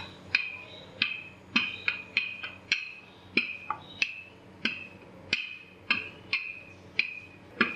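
Wooden rolling pin knocking against a hard countertop as dough is rolled thin: a sharp wooden tap about two or three times a second at uneven spacing, each with a short ring.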